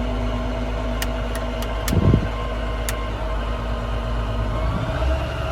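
International Durastar service truck's diesel engine idling steadily, with several sharp clicks and a short thump about two seconds in; near the end the engine's low note shifts.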